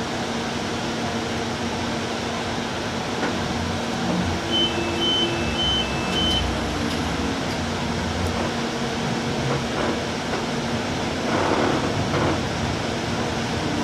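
Interior of a moving light rail car: a steady running rumble with a constant low hum. About four and a half seconds in, a short run of high electronic beeps alternates between two pitches. A brief louder rattle comes near the end.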